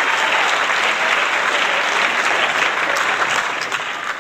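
Crowd applauding, dense and steady, fading out near the end.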